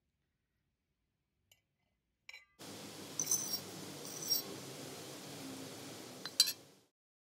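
Metal fork clinking against a plate while spaghetti is scooped up. There are three sharp clinks over a steady low background hum, which starts and stops abruptly.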